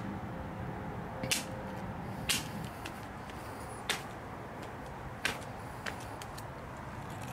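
Sharp, separate knocks of a cracked Samsung Galaxy S III display hitting brick edging, the two loudest in the first few seconds, then a few fainter, irregular clicks.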